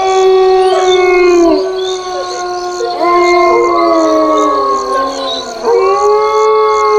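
Several canines howling together in long, overlapping held notes that slide down and rise again, in a horror sound effect. A faint, regular high pulsing sounds behind the howls.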